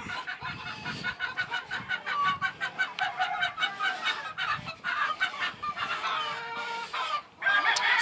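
A flock of chickens clucking, many short calls overlapping without a break.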